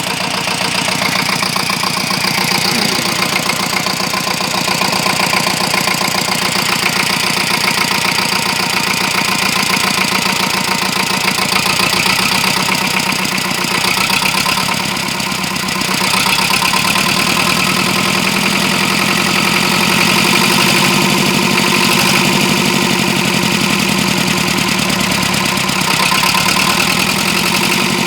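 BMW N73 V12 engine idling steadily, running smoothly ('not too badly'), with a brief dip in level about halfway through.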